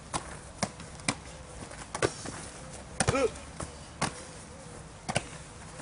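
Rugby ball slapping into players' hands as it is caught and passed, a run of sharp smacks about every half second to a second. A short shout comes about three seconds in.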